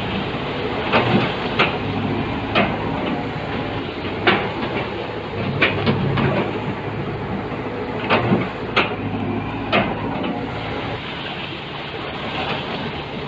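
Heavy construction machinery's diesel engine running steadily, with sharp metal clanks at irregular intervals, about nine in all. The engine drops a little quieter over the last couple of seconds.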